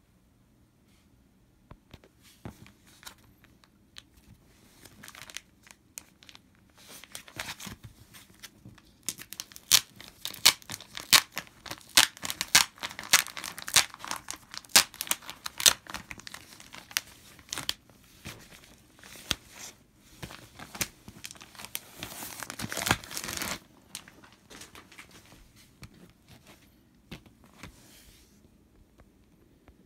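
Plastic shrink wrap on a 12-inch vinyl LP jacket being torn and crinkled off by hand: scattered crackles that build into dense, sharp crinkling, with a longer tearing rip about two-thirds of the way through before it thins out again.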